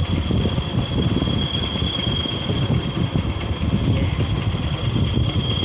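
Motorcycle riding along a paved road: engine running under a dense, uneven low rumble, with a thin steady high-pitched whine above it.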